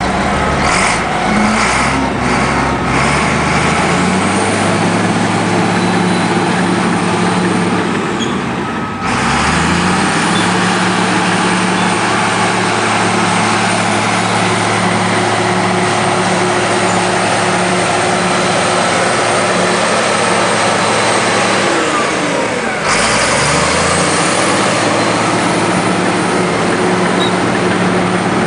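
Komatsu D83 bulldozer's diesel engine running hard and steady, its pitch climbing over the first few seconds. The engine note drops and climbs back again twice, about nine seconds in and again near the end.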